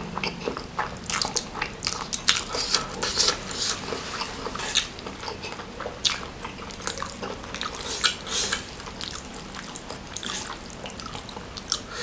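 Close-miked chewing and wet mouth sounds of a person eating spicy noodles and meatballs, a steady run of irregular smacks and clicks.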